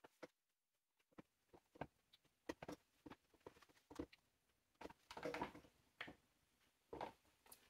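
Near silence with faint scattered knocks and rustles: a clothes iron being set down, held and shifted across fabric on an ironing board while fusing iron-on interfacing by pressing rather than ironing.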